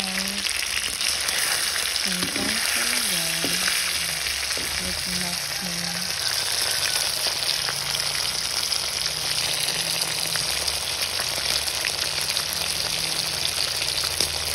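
Longganisa sausages frying in hot oil in a pan: a steady, dense sizzle with many small crackles.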